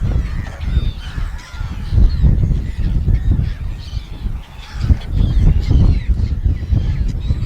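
A flock of gulls calling over and over, many short overlapping cries, over a loud gusty low rumble.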